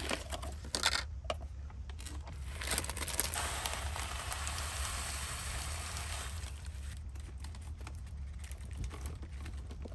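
Food packaging being handled: a few sharp clicks as a plastic lid comes off a yogurt pot. Then granola is poured from a crinkling plastic bag with a dense crackle lasting about three seconds, followed by light scattered taps as blueberries are tipped from a plastic punnet. A low steady rumble sits underneath.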